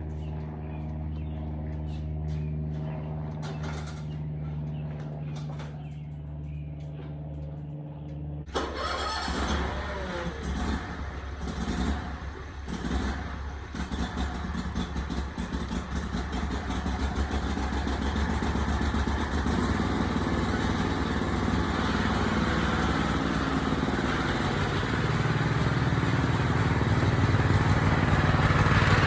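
An engine idling with a steady hum. About eight seconds in it picks up and runs under load, with knocks and rattles over it, and grows gradually louder.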